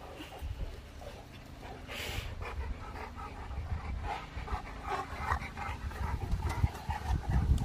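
Dogue de Bordeaux dogs panting, with scattered short snuffling noises.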